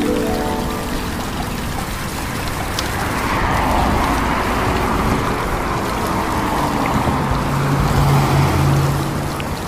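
Water spraying hard from a hose, a steady rush, over the running of a vehicle engine; a low steady hum comes in about two-thirds through.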